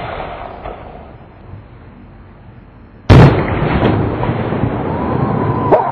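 Aerial firework salute: the hiss of the shell rising after its mortar launch, then one very loud bang about three seconds in, followed by a long echoing rumble.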